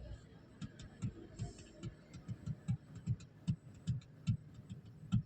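Faint, irregular knocks and clicks of metal on metal, two or three a second, as a car's steering column shaft is worked loose and pulled out.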